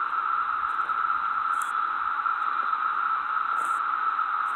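Steady chorus of cicadas (locusts), an unbroken droning buzz, with a few short, high chirps over it.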